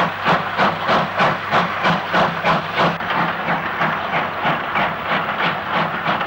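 GWR Modified Hall 4-6-0 steam locomotive working hard up a steep bank with a heavy freight, its exhaust beating steadily about four times a second. The beats grow a little softer about three seconds in.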